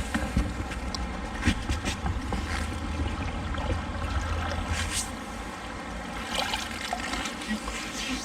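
Shallow river water sloshing and trickling around someone wading, with scattered light clicks.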